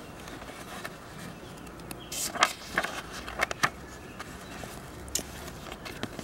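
Pages of a paper picture book being turned and handled: a handful of short rustles and taps, clustered about two to four seconds in, over a faint steady background.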